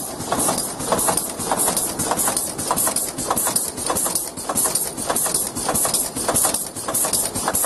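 Vega Altair folder-gluer running, with cardboard box blanks feeding through it: a steady, rhythmic mechanical clatter with a hiss on each beat, several beats a second.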